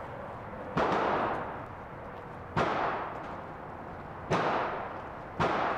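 Four gunshots at a firing range, unevenly spaced a second or two apart, each followed by a long reverberant tail.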